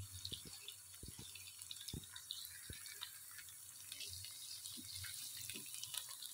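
Chopped onions frying in oil in a karahi: a faint, steady sizzle with many small crackles and pops.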